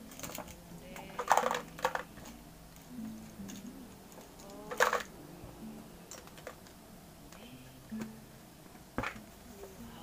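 Pens and markers rattling and clattering in a clear plastic cup as it is handled and set down on the table: a cluster of clatters about a second and a half in, a sharp one near the middle and a lighter one near the end. Soft, low background music sustains underneath.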